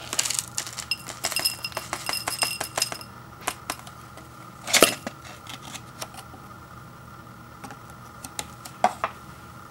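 Dried vegetable bits and seasoning from an instant ramen cup pattering and clinking into a white ceramic bowl as they are shaken out, a dense run of small clicks for the first three seconds. A louder knock comes a bit under five seconds in, with a few scattered taps against the bowl after it.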